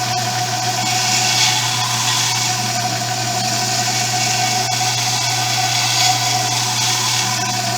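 A motor running steadily with a constant hum and a steady whine, without change in speed.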